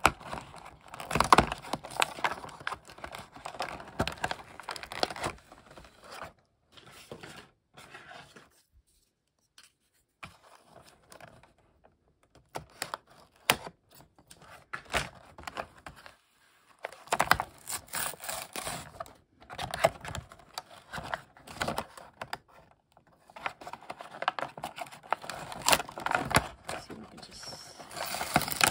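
Hands working at a small plastic BotBots toy pod, trying to pry it open: a stream of clicks, taps and scrapes of hard plastic with some crinkling. There is a pause of a few seconds about a third of the way in.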